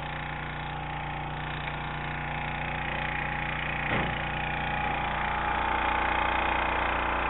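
A small engine aboard a bowfishing boat runs with a steady hum that gets slightly louder. There is a brief knock about four seconds in.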